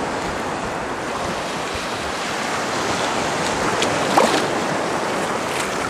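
Sea waves washing in the shallows, with wind on the microphone. A light splash about four seconds in, from a swimmer moving through the water.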